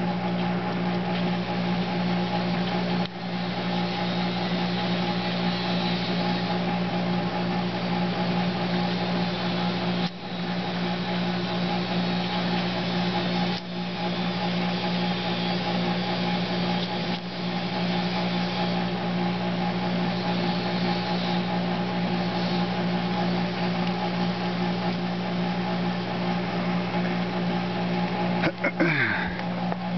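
A steady machine hum with several fixed pitches at an even level, with a brief sound falling in pitch near the end.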